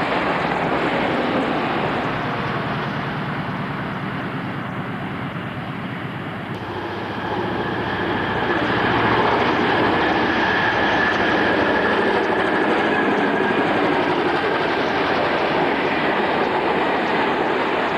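Trains passing on the line, heard as a steady rumble with wheel-on-rail noise. About six and a half seconds in the sound changes to a second, louder passing train with a steady high whine over the rumble.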